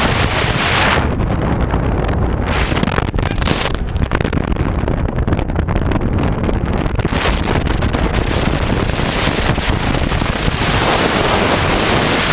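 Wind buffeting the microphone of a camera on a moving motor scooter, surging in gusts over the low rumble of the scooter running.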